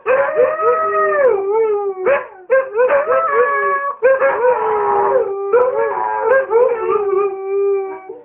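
Two huskies howling together in long drawn-out howls, their voices overlapping at two different pitches. The howls glide and fall, with a few short yips between them, and stop abruptly near the end. This is excited howling to demand a walk.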